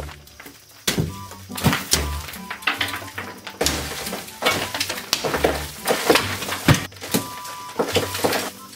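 Background music with a steady low beat, over irregular knocks and crumbling as a clay wall on bamboo lattice is broken out with a hammer.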